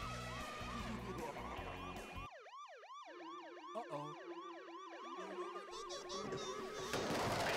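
Police-style siren in a fast yelp, its pitch rising and falling about three times a second. Background music plays under it for the first two seconds, and a loud rush of noise swells near the end.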